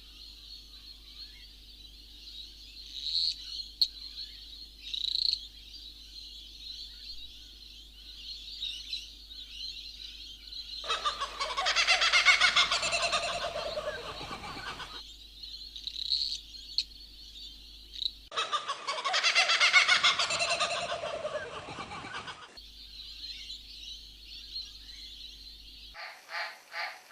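Birds calling over a steady high-pitched drone, with small chirps throughout. Two long, loud calls stand out around the middle, and a rapid pulsing call of about four beats a second comes in near the end.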